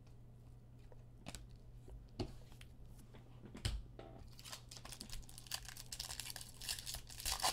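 A few light taps and clicks as cards are handled and set down, then, from about halfway in, the foil wrapper of a trading-card pack crinkling and tearing as it is opened.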